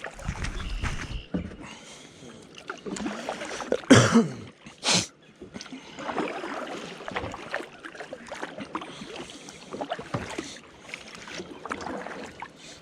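Kayak paddle dipping and splashing in floodwater in uneven strokes, with a louder burst of noise about four seconds in and another short, sharp one about a second later.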